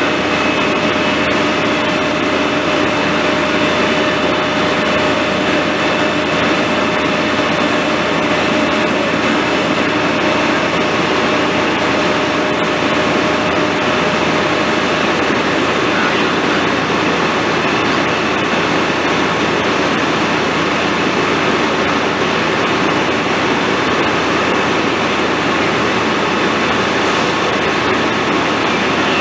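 Fire engine's engine running steadily at pumping speed, a constant loud drone with a few steady tones in it. Two of the lower tones drop out about halfway through.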